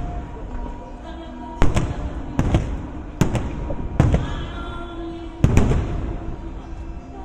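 Fireworks bursting overhead: five sharp bangs at irregular intervals, with music playing steadily underneath.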